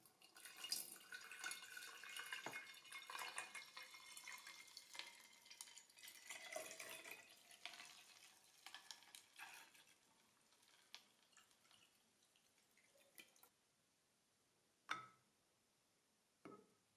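Water poured from a bottle into a glass jar of ferric chloride lumps, splashing and trickling for about ten seconds and then tapering off, mixing a ferric chloride etching solution. Near the end come two short knocks, the steel knife blade set against the glass jar.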